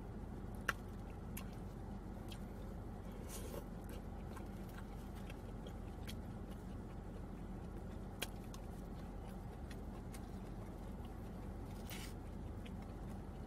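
Chewing mouth sounds, with a few clicks and scrapes of a plastic fork against a foam takeout container, over a steady low hum. A sharp click just under a second in is the loudest sound.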